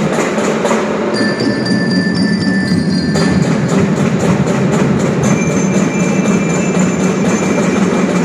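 Marching band playing: drums beating steadily, with high bell-like mallet notes held over them and changing pitch several times.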